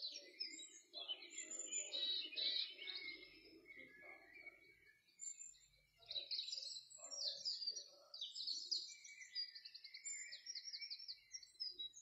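Several songbirds singing, with high chirps and rapid trills of repeated notes overlapping throughout. A fainter low sound runs beneath them for the first five seconds or so.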